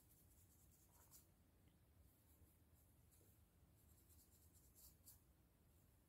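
Faint scratching of a fine-tooth comb and fingers working through tightly coiled hair over a dry, itchy, flaking scalp. The short scratchy strokes come in two runs, one at the start and one about two-thirds of the way in.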